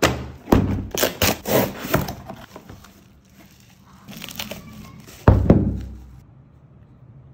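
Unboxing: a cardboard shipping box knocked about and opened, with several sharp cardboard knocks and rustles, then crinkling bubble wrap. About five seconds in comes a heavy thump, fading over about a second, as the unwrapped Tesla coil unit is set down on the table.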